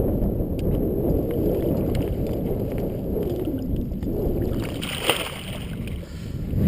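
Steady low rushing noise of river water and wind buffeting the microphone, with a faint knock about five seconds in.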